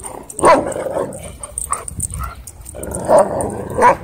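A dog barking during rough play-wrestling between two dogs. There are three loud barks, about half a second in, a little after three seconds and near the end, with lower dog noises between them.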